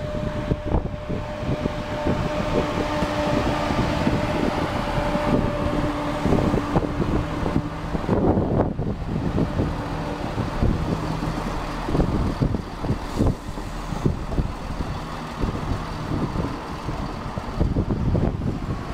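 Class 170 Turbostar diesel multiple unit passing close by: a rumble of engines and wheels on the rails, with a steady whine over the first six or seven seconds.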